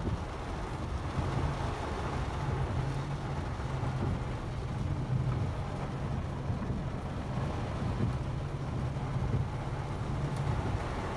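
Inside a car's cabin, a steady low engine hum from the stationary car with rain falling on the roof and windows as an even hiss with faint scattered ticks.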